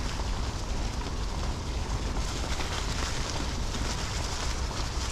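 Mountain bike tyres rolling and crunching over a trail of dry fallen leaves, with a steady low rumble of wind on the microphone and scattered small clicks and rattles from the bike.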